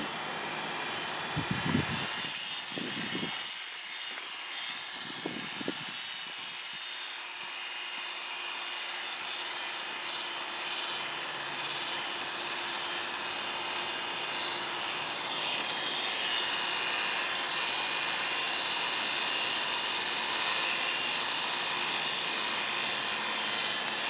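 Oster A5 electric animal clipper running steadily with a continuous buzz as it cuts through a Brittany's coat.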